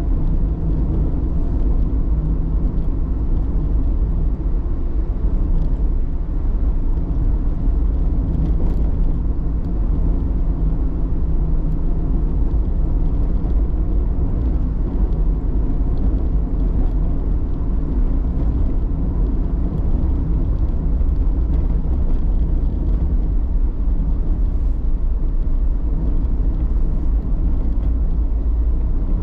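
Motor vehicle driving along a road: a steady low rumble of engine and tyre noise, with a faint engine hum, holding even throughout.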